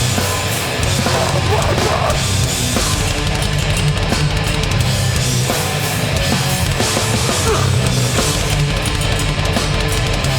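Hardcore band playing live at full volume: heavily distorted down-tuned guitars, bass and pounding drums.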